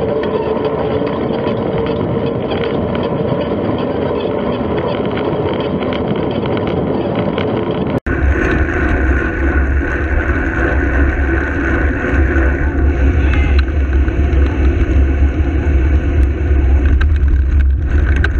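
Wind noise and road rumble on a bicycle-mounted camera's microphone while riding. About eight seconds in, the sound drops out for an instant and switches to a heavier, deep rumble.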